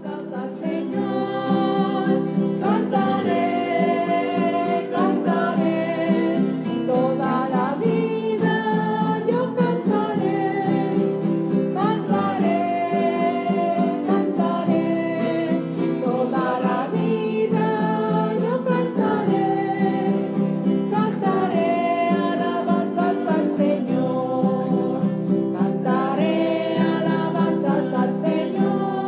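Closing hymn: one voice singing a melody over strummed acoustic guitar. It fades up in the first second.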